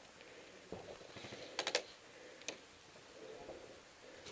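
A few faint, sharp clicks over a quiet background: one, then three in quick succession about a second and a half in, then a last one.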